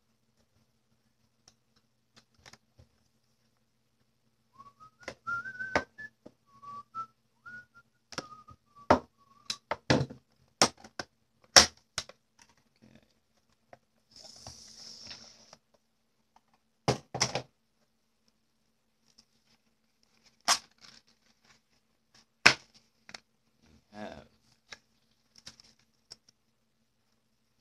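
A cardboard retail box and its packaging being opened and unpacked by hand on a wooden desk: scattered sharp clicks, taps and knocks, with a short rustle about halfway through. From about five seconds in, a person whistles a short wandering tune for about five seconds.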